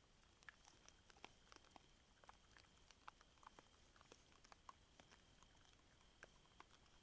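Faint, irregular crunching and clicking: wild boar chewing corn at a feeder, several small cracks a second.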